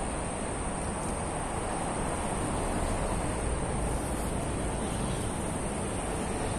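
Steady outdoor background noise with a low, even rush, like wind on the microphone, and no distinct events.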